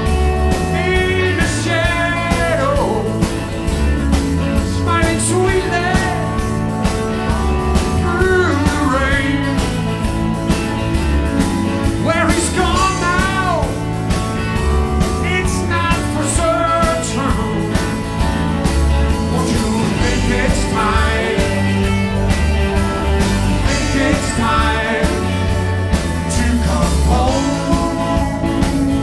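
Live rock band playing: a male lead vocal over electric guitars, bass guitar and a steady drum beat.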